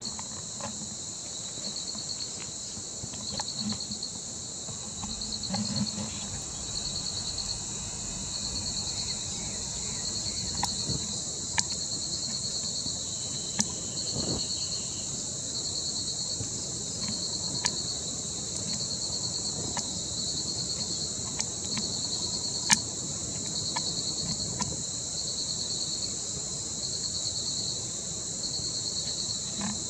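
Chorus of insects: a steady high-pitched drone, with a second trill pulsing on and off about once a second. A few short, sharp clicks stand out now and then.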